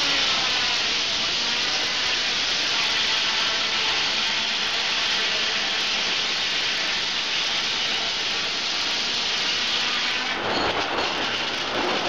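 Old sawmill's large circular head saw cutting lengthwise through a log on the carriage, a loud steady hiss of blade in wood. About ten seconds in the cut ends and the sound drops to the lower rattle of the running mill.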